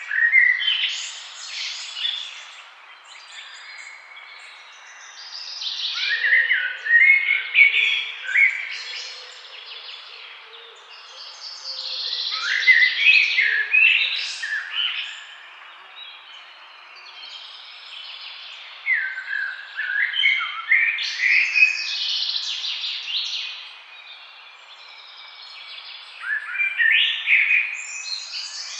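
Songbirds singing in a forest: bouts of bright chirps and trills every several seconds, with a steady hiss of background noise between them.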